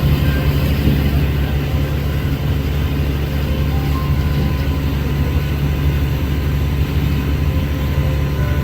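Amphibian tour boat's engine running steadily, a loud, even, low drone.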